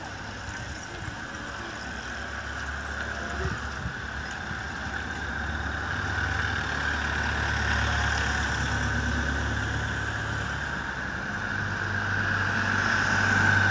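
Engines of slow-moving escort vehicles, an ambulance van and a car, running at low speed and growing louder as they draw near.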